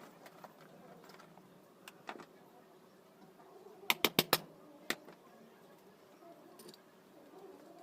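Sharp clicks and taps from hard parts and tools being handled while a ceiling fan's bearing is changed: a quick run of four or five loud clicks about four seconds in, one more just under a second later, and faint taps otherwise.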